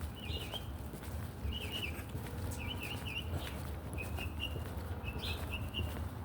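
A small bird chirping in short, repeated phrases, about one every second, over a steady low rumble.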